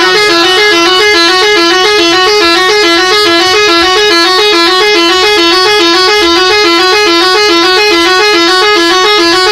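Bus's telolet musical horn, a set of air horn trumpets, playing a quick repeating tune of alternating notes, loud and unbroken throughout.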